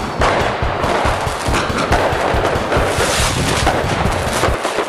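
Firecrackers going off in a fast, unbroken crackle of small bangs.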